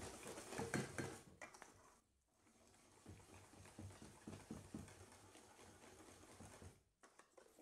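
Faint rhythmic strokes, about three a second, of a wire whisk beating thick waffle batter in a stainless steel mixing bowl to whisk out the lumps, with a brief break about two seconds in.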